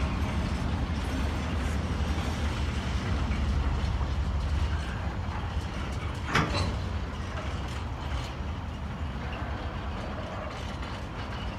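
Freight train of container flat wagons rolling past: a steady low rumble and clatter of wheels on rail that slowly fades as the train draws away, with one sharp knock about six seconds in.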